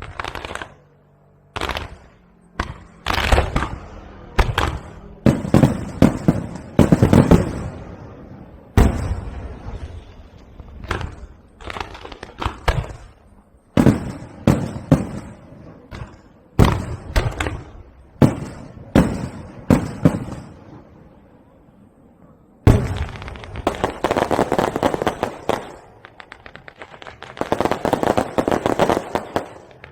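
Aerial firework shells bursting overhead, one loud bang after another with a lingering tail. About two-thirds of the way in they give way to a dense stretch of rapid crackling pops, which pauses briefly and then resumes.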